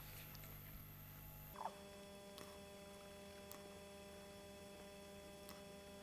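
Near silence with a faint steady electrical hum, whose tone shifts about one and a half seconds in, and a few faint ticks.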